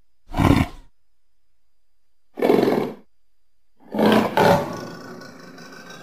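Leopard calling: three short, rasping roars about a second and a half apart, the third trailing off into a longer, quieter sound.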